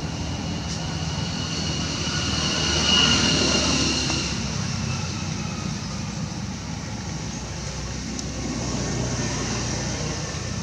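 An engine passing by, its steady hum swelling to a peak about three seconds in and then fading away.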